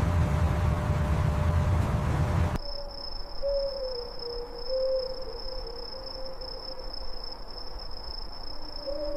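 A low rumbling noise cuts off abruptly after about two and a half seconds. It gives way to a steady, high-pitched insect trill with a faint wavering lower tone beneath it.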